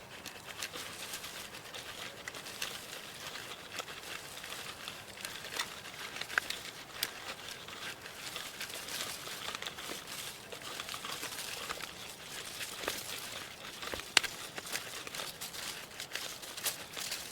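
Crinkling and rustling of material being handled, with many scattered sharp clicks and snaps; the loudest snap comes about 14 seconds in.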